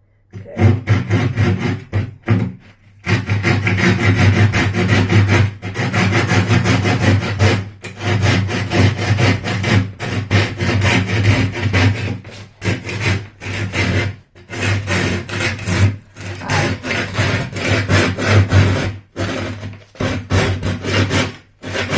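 A saw cutting steadily through a wooden table top along a marked line, with a few short pauses between runs of strokes.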